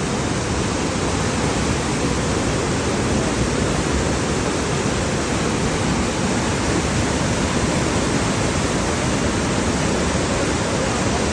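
A rain-swollen river in flood, its water rushing steadily and loudly without a break.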